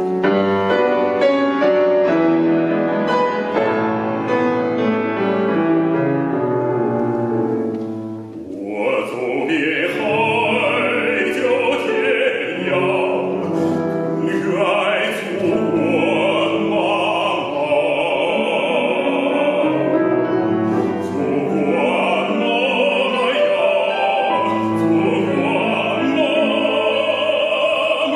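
Grand piano playing alone, then about eight seconds in a male operatic voice enters and sings with vibrato over the piano accompaniment.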